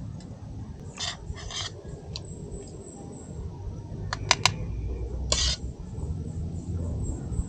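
A spoon scraping and clinking on a plate while eating: a few short scrapes, then a quick run of sharp clinks about four seconds in, over a steady low rumble.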